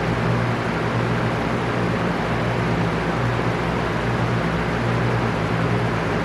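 Electric fan running steadily: an even rush of moving air over a low, steady motor hum.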